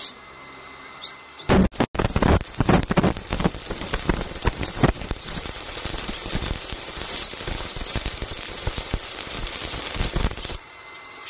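Stick (shielded metal arc) welding: a flux-coated electrode arcing on steel plate, with a dense, irregular crackle full of sharp pops. It starts about a second and a half in and cuts off sharply near the end as the arc is broken.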